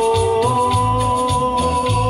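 Backing-track music between sung lines: a held keyboard note that steps up in pitch about half a second in, over a bass line pulsing about twice a second.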